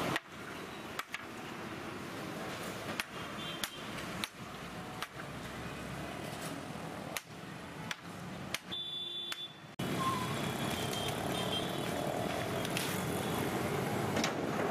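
Street traffic noise with scattered sharp clicks and knocks through the first part; the background drops away briefly about nine seconds in, then returns louder.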